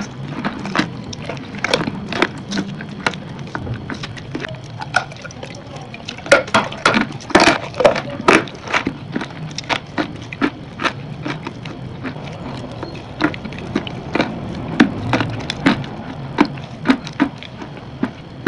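Close-miked crunching: biting and chewing a dry, crumbly white chunk, a fast irregular series of sharp crackles that grows loudest and thickest about six to nine seconds in.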